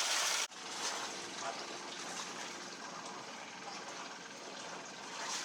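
Steady rushing water noise, which drops suddenly to a quieter, even rush about half a second in.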